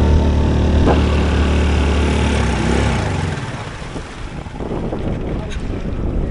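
Small outboard motor on an inflatable dinghy running steadily under way, then cutting out suddenly about three seconds in, leaving wind and water hissing past the hull: the dinghy's engine has died.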